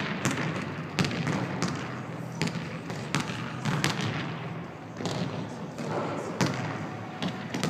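Basketball bouncing on a gym floor as a player dribbles and shoots, a string of sharp, irregularly spaced bounces echoing in a large gymnasium.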